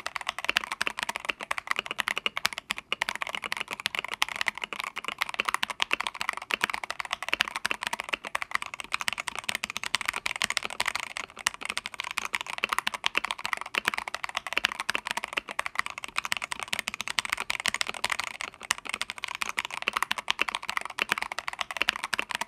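Fast, continuous typing on an Akko ACR59 mechanical keyboard with Akko Jelly Pink linear switches: a dense run of sharp keystroke clacks with no pauses.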